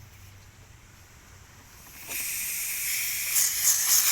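Refrigerant hissing out at the centre charging hose of an AC manifold gauge set, purging air from the line before charging. The hiss starts loud about two seconds in.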